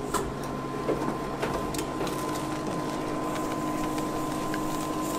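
Induction cooktop humming steadily under a stainless steel mixing bowl: a held whine over a lower hum, with a few faint clinks.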